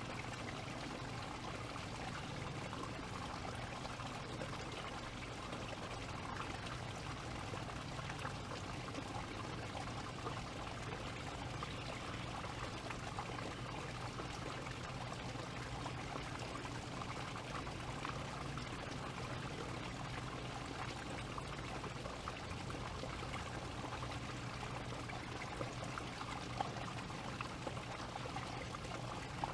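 A steady, even rushing noise with a low hum beneath it, and one brief click near the end.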